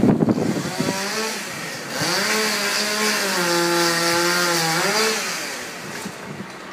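Chainsaw revving up and cutting through a plane-tree branch, its pitch sagging as it bites into the wood, then rising as it comes free before dying away. Wind buffets the microphone at the start.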